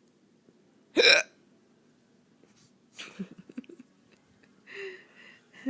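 A woman's hiccup about a second in: one short, loud, sharp gulp with a voiced catch. Much quieter breathy sounds follow.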